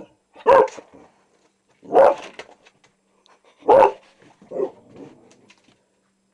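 A boxer dog barking at her own reflection in a mirror: four sharp barks spread over about four seconds, the last one softer.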